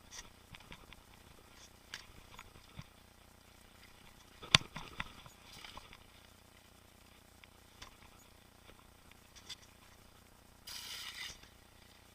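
Mountain bike on a trail ride: scattered clicks and rattles from the bike, one sharp knock about four and a half seconds in, and a brief rush of noise near the end.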